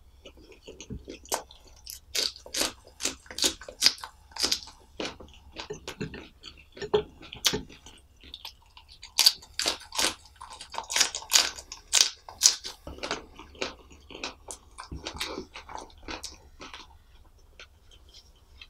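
Close-miked biting and chewing of a raw green chilli: a fast run of crisp crunches that thins out over the last few seconds.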